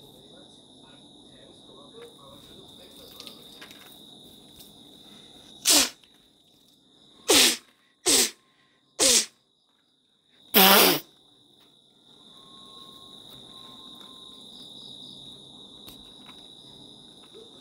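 A steady high-pitched insect trill like crickets, broken by five short, loud noisy bursts a little after the middle, the last one the longest.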